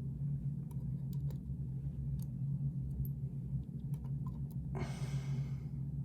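Faint, scattered small metallic clicks of lock pins and a pick being handled in a disassembled lock cylinder, over a steady low hum, with a brief rush of noise near the end.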